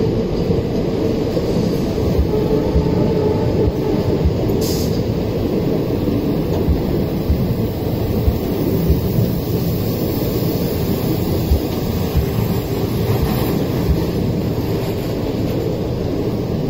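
Devagiri Express passenger train running along the track: a steady, loud rumble of wheels on rails with irregular low knocks. There is a brief hiss about five seconds in.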